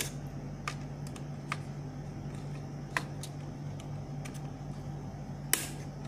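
RAM modules being pressed into the Dell Optiplex 980's memory slots: a series of sharp plastic clicks as the slot retention latches snap shut, the loudest about three seconds in and near the end.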